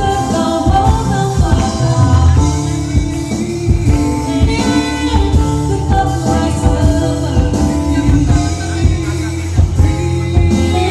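A pop song playing: a singer over guitar, bass and a drum kit.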